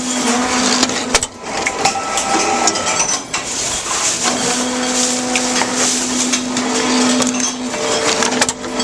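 Tomra TX2 reverse vending machine running: its motor hums steadily as it turns a bottle on its rollers to read the barcode, with clattering and knocking of the bottle in the chamber. The machine is not spinning the bottles properly, so it cannot read the barcode.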